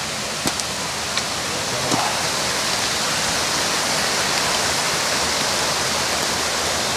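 Creek water rushing steadily, an even hiss that holds through, with a few faint clicks in the first two seconds.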